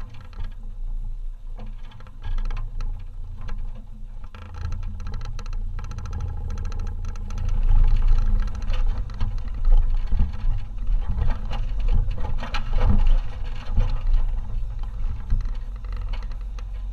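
SUV creeping down a rough dirt trail: a low engine and drivetrain rumble with tyres crunching over rocks and the body rattling and knocking on the bumps, busier and louder through the middle.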